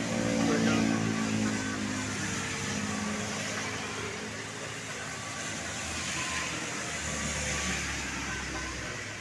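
Road traffic: a motor vehicle's engine passes close by, loudest in the first two seconds with its pitch dropping slightly, then a steady traffic hum.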